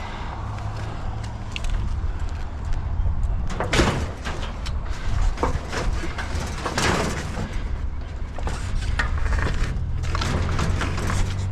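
Bicycles being handled and loaded: metal clanks, knocks and rattles, loudest about four and seven seconds in, over the steady low hum of an idling vehicle.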